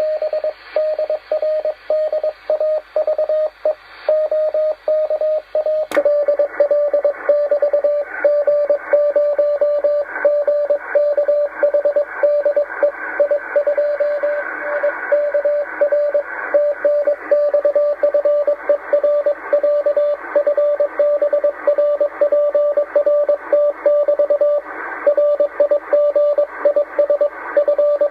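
Morse code (CW) received on the 10-metre amateur band by a radio receiver: a single steady tone keyed on and off in dots and dashes over band hiss and static. A click sounds about six seconds in.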